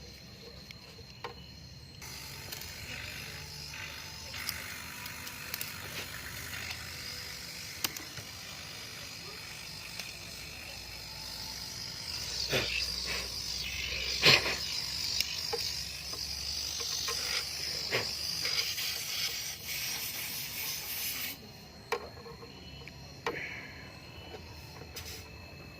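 Pressurised gas hissing steadily during work on a refrigerator's condenser piping. It starts suddenly about two seconds in and cuts off sharply near the end, with a few clicks and knocks along the way.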